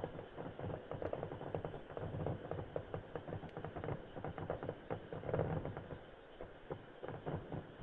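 Fireworks crackling: a dense, rapid run of small pops and crackles, with low rumbling booms coming and going.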